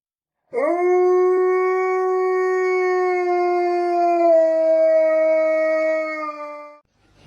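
A dog howling: one long, loud howl that swoops up at the start, holds nearly steady, then drops slightly in pitch about four seconds in before it stops.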